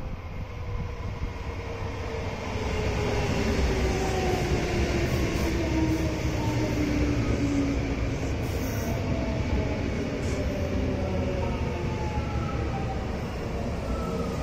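Kintetsu Minami-Osaka Line electric train running past the platform and slowing, its motor and gear whine falling steadily in pitch over the rumble of the wheels on the rails.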